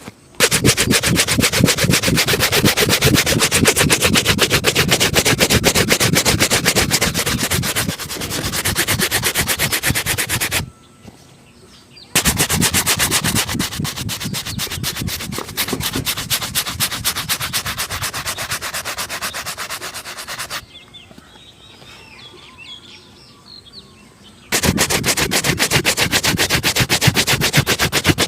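Shoe-shine brush scrubbing back and forth over a leather shoe in very fast strokes, in three long spells broken by two short pauses.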